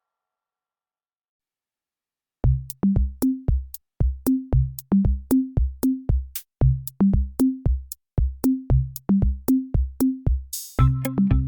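Electronic background music: after about two and a half seconds of silence, a drum-machine beat of deep, pitched drum hits starts, stepping up in pitch in a repeating pattern. Near the end a cymbal-like crash comes in and synthesizer tones join the beat.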